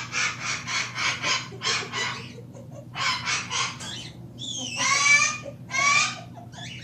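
Voice making silly noises: a quick run of chicken-like clucking pulses, about five a second, then a few short rising squeals.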